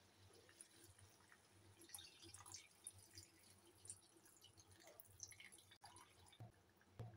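Faint splashing and dripping as water is poured from a plastic bottle into a pan of chicken curry, with a soft knock near the end.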